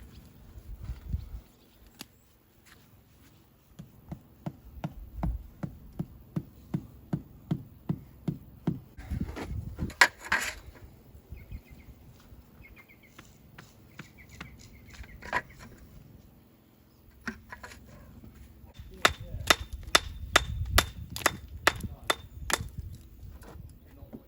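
Repeated hammer blows in runs: a steady run of about two strikes a second, then, near the end, a faster and louder run.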